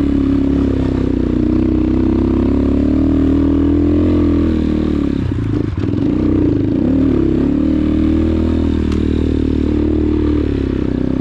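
X-Pro Titan 250cc dirt bike's single-cylinder four-stroke engine running at a steady speed on the trail. Its pitch dips and wavers briefly about halfway through, then settles back to a steady note.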